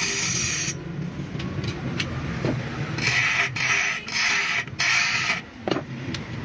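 Workshop mechanical noise: four short hissing, rasping bursts of about half a second each come in quick succession in the second half, over a low steady hum.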